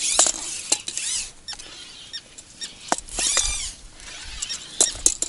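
Fishing tackle being handled: a few short squeaks that swoop in pitch, with scattered sharp clicks in between.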